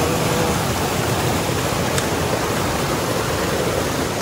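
Fast mountain stream rushing over rocks and a small cascade: a steady rush of running water.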